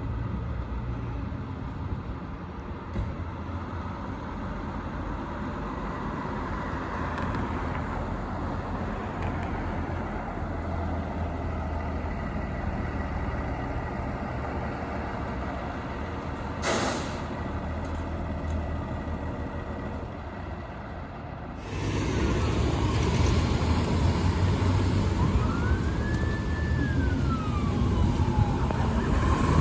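Fire truck engine rumble with street traffic, a brief sharp click about 17 s in. After a cut about 22 s in the rumble is louder, and a siren wails up and back down once near the end.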